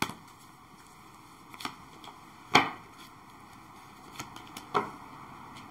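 Tarot cards being drawn from the deck and laid down on a tabletop: about five short, sharp taps and slaps, the loudest about two and a half seconds in.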